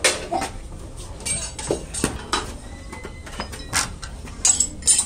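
Metal tools and pieces being handled: irregular clinks, knocks and scrapes, a few ringing briefly.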